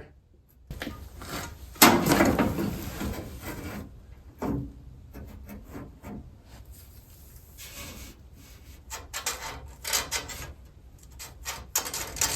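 Irregular scraping and rubbing with scattered light knocks as the catch can and its bracket are handled and slid against the car's sheet-metal fender panel to find a mounting spot. The loudest scrape comes about two seconds in.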